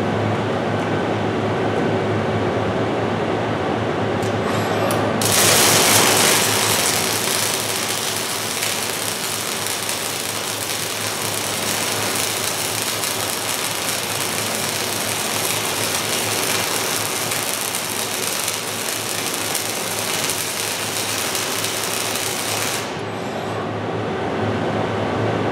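FANUC robot's MIG (gas metal arc) torch striking an arc about five seconds in and welding steadily, as a slow pass at a lowered travel speed of 8 inches per minute, until the arc cuts off suddenly near the end. A steady shop hum runs under it before and after.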